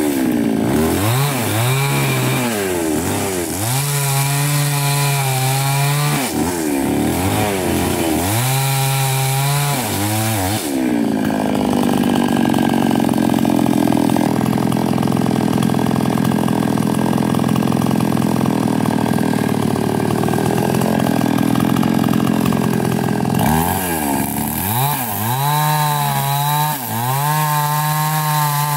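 Small chainsaw revving up and down over its idle, with a long stretch of steady full-throttle running in the middle.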